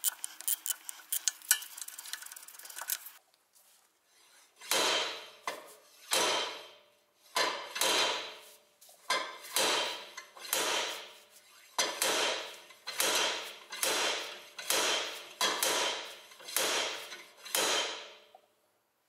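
Heavy hammer blows on metal, about a dozen, roughly one a second, each ringing out before the next. Before them, in the first three seconds, comes a rapid clatter of metal clicks.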